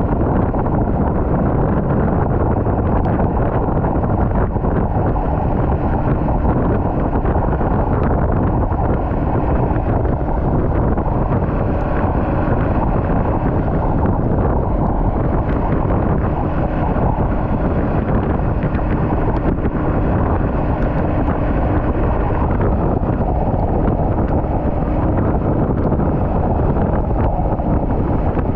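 Wind buffeting the microphone, a steady loud rumble without pauses.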